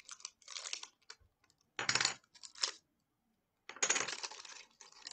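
Small game token chips clicking and clinking against each other as a stack of them is handled and sorted through, in a few short bursts with pauses between.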